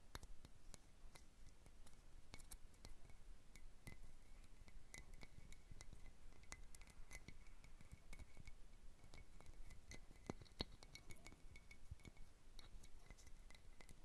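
Fingernails lightly tapping on a glass Christmas bauble: faint, irregular clicks with a thin ringing note in places.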